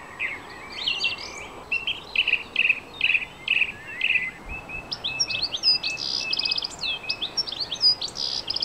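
Songbirds singing a varied string of chirps and warbles, higher-pitched and busier with quick trills in the second half.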